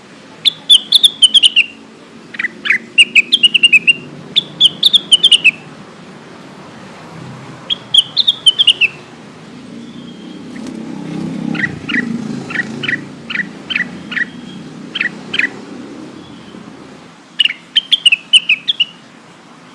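Blue-winged leafbird (cucak wilis) singing: short bursts of quick, high chirping notes that fall in pitch, repeated several times. About halfway through it switches to a run of separate sharp single notes before the chirping bursts return, over a faint low rumble.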